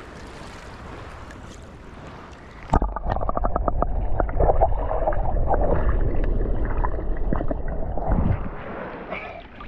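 Sea water gurgling and sloshing, heavily muffled, with the microphone dipped under the water. It starts suddenly about three seconds in and fades near the end, over a low rumble.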